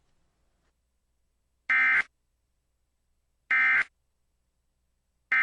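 Emergency Alert System end-of-message signal: short, loud, buzzy bursts of SAME digital data, each about a third of a second, repeating about every 1.8 seconds. Two full bursts sound and a third begins right at the end, marking the close of the alert broadcast.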